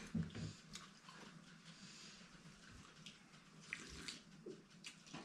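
Faint sounds of two people eating and drinking from cans in a quiet room: a few soft clinks and sips.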